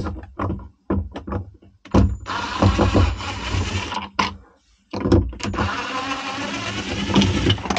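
Ryobi 18V cordless impact driver backing out screws from a battery switch mount: a few short clicks, then two runs of the driver of about two to three seconds each, with a short pause between.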